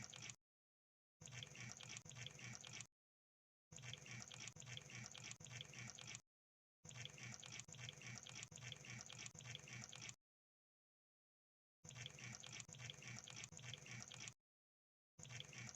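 Crab sound effect: bursts of rapid crackling clicks, each lasting a second or a few seconds, broken by short gaps of silence.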